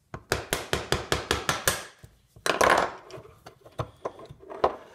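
Rapid run of about ten sharp hammer taps on a chisel, driving the end bell of an old condenser fan motor off its steel case. About two and a half seconds in comes a longer metallic scraping clatter, then a few lighter knocks as the end bell comes loose.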